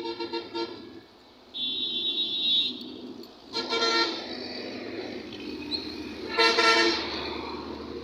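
Vehicle horns honking several times over road traffic: a quick stutter of beeps at the start, a high shrill horn about two seconds in, another honk around four seconds, and a louder honk late on.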